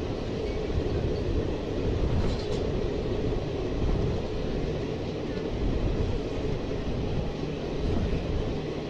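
Passenger train coach running along the track, heard from its open door: a steady rumble of wheels on rails.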